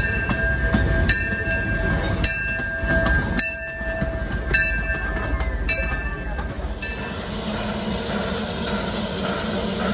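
The Disneyland Railroad's C.K. Holliday, a small 4-4-0 steam locomotive, rolls past with its passenger train, its wheels clicking over rail joints about once a second under a steady high squeal. About seven seconds in this gives way to a steady hiss and low rumble from a second steam locomotive.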